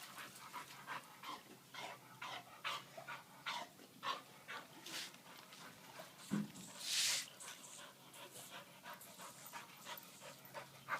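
A dog panting quickly and steadily while swimming, about two to three breaths a second, with one longer, louder rush of noise about seven seconds in.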